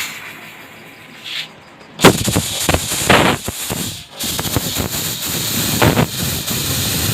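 DJ fog machine firing: a sudden loud hissing blast of smoke about two seconds in that runs on for several seconds, swelling and easing.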